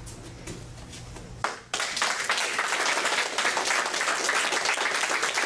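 A small group of people applauding, the clapping starting abruptly about a second and a half in and going on steadily.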